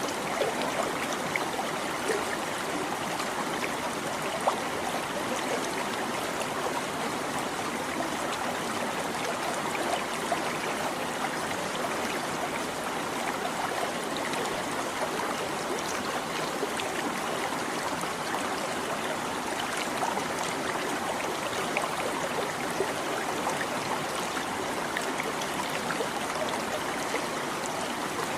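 A shallow stream babbling steadily over stones, an even rush of water with small splashes and trickles.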